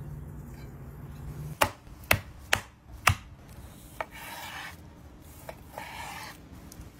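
Chef's knife cutting raw chicken breast on a cutting board. Four sharp knocks come close together in the first half, then the blade draws through the meat in rasping slicing strokes.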